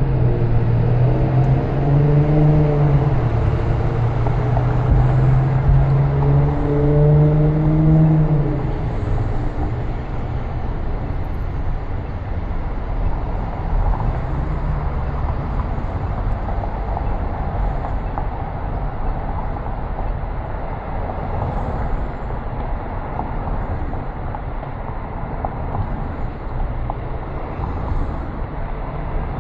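A car driving on city streets: steady road and tyre noise. For the first eight seconds or so, sustained low notes change pitch a few times over it, then stop.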